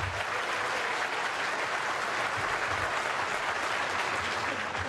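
Snooker crowd applauding a well-played safety shot, a steady clapping that tails off near the end.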